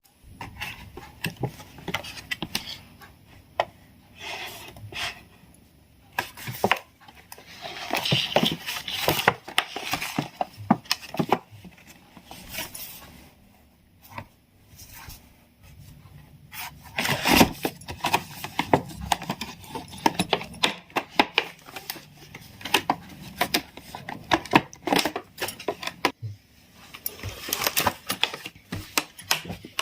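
Clear crystal slime being handled, making irregular clicking, crackling and popping sounds.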